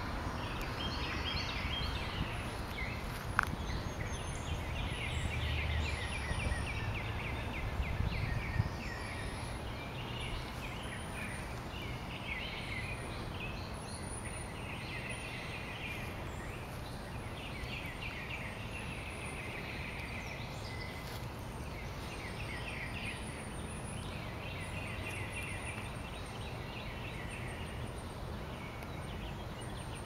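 Several songbirds singing, with repeated chirps and trills overlapping, over a steady low rumble. One sharp click about three and a half seconds in.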